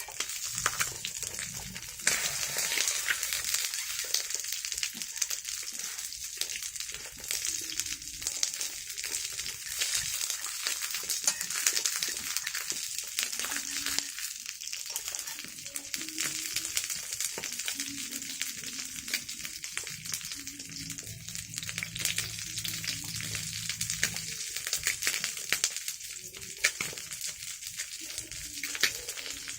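Food frying in hot oil in a pan: a steady sizzle thick with small crackles and pops, louder from about two seconds in.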